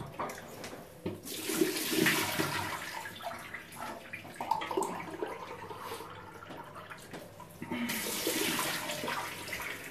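Bathroom tap running into a sink while water is splashed on the face by hand, rinsing off shaving lather with hot water. It comes in two rushes of about two seconds each: one about a second in and one near the end, with smaller splashes between.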